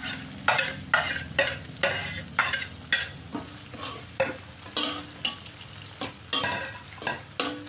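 Slotted metal spatula stirring and scraping chopped chillies, garlic and shallots frying in a wok, with a scrape about twice a second over a steady sizzle.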